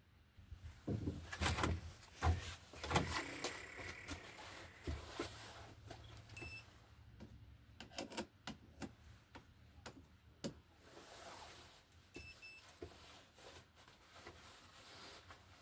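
Handling noise: scattered clicks, knocks and rustling, busiest and loudest in the first few seconds. A short, faint electronic double beep comes twice, about six and twelve seconds in.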